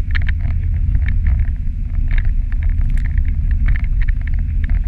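Dog sled running fast over a groomed snow trail: a steady low rumble of wind and sled movement, with irregular crisp crunches and clicks of runners and dogs' paws on the packed snow.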